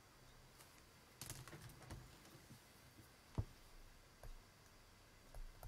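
Pen scratching along a plastic set square, then a sharp click about three and a half seconds in as the drawing tools are put down on the desk, followed by a few softer taps.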